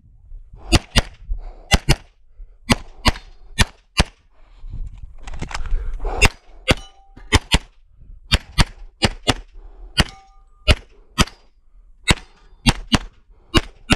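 Rapid semi-automatic pistol fire, mostly in quick pairs (double taps) on each target, with a pause of a second or so about five seconds in. Twice a short ringing tone follows a shot.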